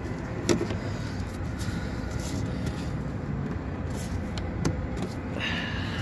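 Steady low background rumble with a few light knocks and clicks.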